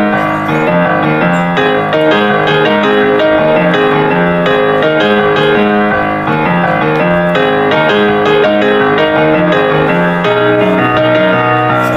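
Instrumental piano music, a steady flow of notes and chords without singing.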